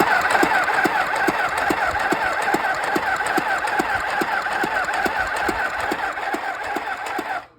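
Singer Tiny Tailor mini sewing machine running steadily, its needle mechanism clicking at an even pace about twice a second. The machine is working again now that its broken thread uptake lever has been glued. The sound cuts off just before the end.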